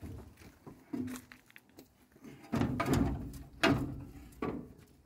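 Heavy metal clunks and knocks, about four of them with the loudest around the middle, as a Wisconsin V465D engine is shifted by hand on its mount on a wood chipper frame.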